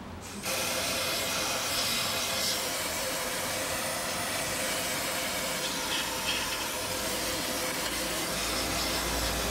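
Aerosol cleaner can spraying in one long continuous hiss, starting about half a second in, washing spilled old gear oil off the transfer case.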